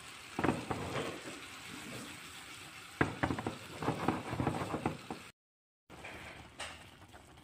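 Frying pan of chicken slices and cherry tomatoes sizzling and bubbling after a glass of water is added, crackling in two spells over a steady hiss. The sound drops out briefly about five seconds in.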